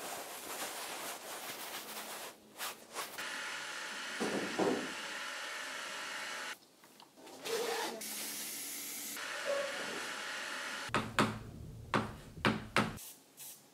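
Close-up foley sounds in a sequence: thick paint being smeared and mixed, a steady hiss, then chalk on a blackboard in a quick run of sharp taps and scrapes near the end.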